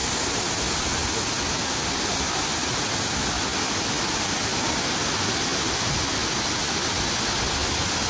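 Waterfall and fast river water rushing, a steady, even wash of water noise with no breaks.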